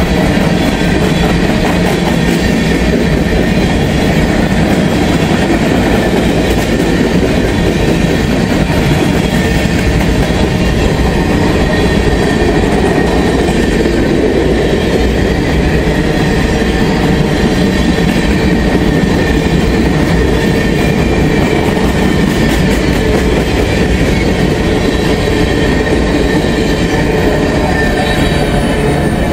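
Freight train's covered hopper cars rolling past close by: a loud, steady rumble of steel wheels on rail, with faint thin high squealing tones above it.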